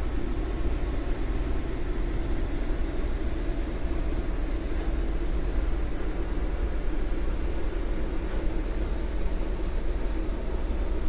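Steady drone of a longline fishing vessel's engine running, heard inside the wheelhouse: a deep, constant rumble with a hum above it and no change in pace.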